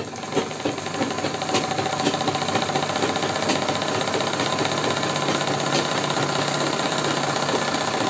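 Sewing machine running steadily, stitching a straight line of stitches along a salwar cuff, with a fast, even rattle from the needle mechanism.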